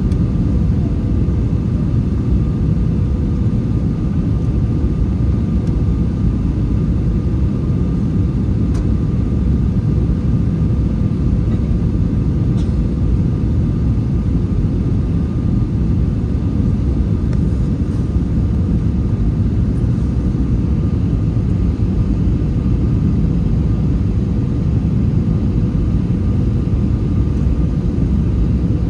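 Steady cabin noise aboard an Airbus A321 on approach: a constant low rumble of engines and airflow, with a faint steady hum above it.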